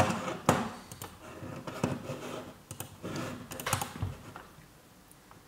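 Irregular light clicks and taps, a sharp one at the very start and another about half a second in, growing sparser and fainter after about four seconds.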